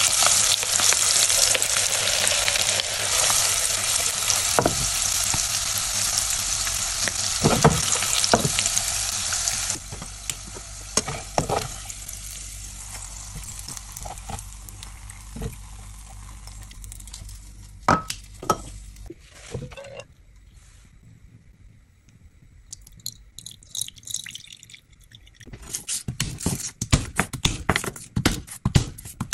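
Garlic and lemongrass sizzling in hot chicken oil in a saucepan while being stirred; the frying hiss drops to a much quieter bubbling about ten seconds in, with a few clicks of tongs in the pan. Near the end, a run of sharp knife clicks on a wooden cutting board as garlic cloves are cut.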